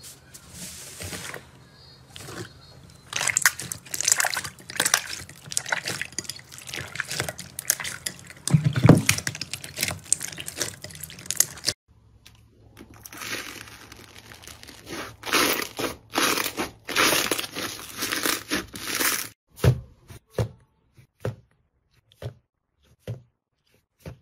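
Slime being squeezed and worked by hand, giving dense wet crackling and popping clicks. It breaks off abruptly about halfway through, starts again, and thins to a few scattered pops near the end.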